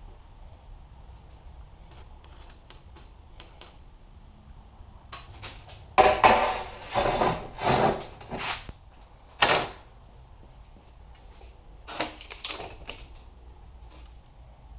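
Heavy rusty steel beam being slid and scraped across a steel welding table: several loud scraping clanks about six to ten seconds in, then a few lighter clatters.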